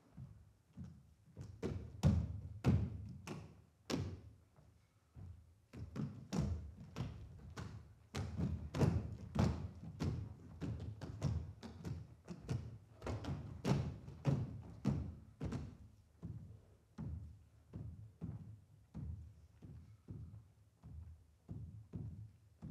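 Irregular percussive thuds and knocks with a deep, resonant low end and short ringing tails, a few each second, thickest in the middle of the stretch.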